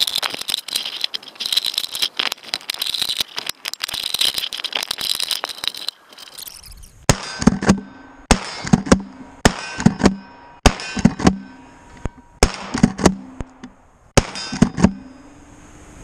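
Kel-Tec KSG pump-action 12-gauge shotgun being loaded, with a run of clicks and rattles, then fired about six times roughly a second apart with 1.75-inch Aguila mini-shell slugs. Each shot is followed by a short ringing, typical of the hit steel targets.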